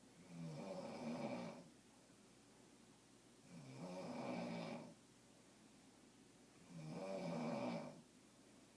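A person snoring in a steady rhythm: three snores, one about every three and a half seconds, each lasting just over a second.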